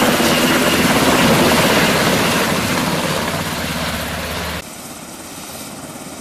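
Military helicopter running loud and close, its rotor giving a steady rapid chop over the turbine noise, fading a little as it moves off. About four and a half seconds in, the sound cuts off sharply to a quieter steady rushing hiss.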